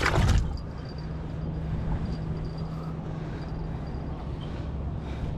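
Steady wind rumble on an action camera's microphone, with a low steady hum underneath.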